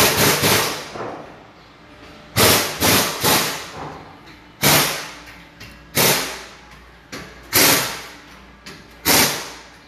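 Loud, sharp metal bangs, about ten at uneven intervals, each ringing out briefly in a large workshop.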